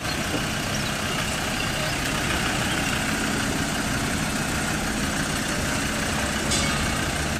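Engine of a trackless tourist road train running steadily as the train drives past.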